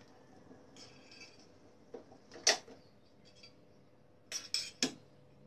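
Metal wire skimmer knocking and clinking against an aluminium cooking pot as boiled chicken gizzards and livers are scooped out of the broth. One sharp knock comes about halfway through, then a quick run of three or four clinks near the end.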